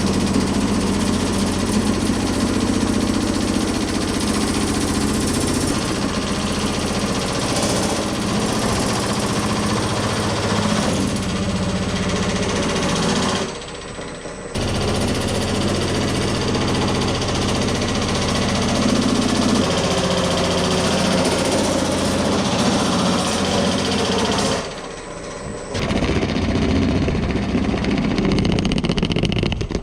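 Power-driven sheet-metal shaping machine rapidly hammering a steel body panel. It runs continuously, stopping briefly twice: about 13 seconds in and about 25 seconds in.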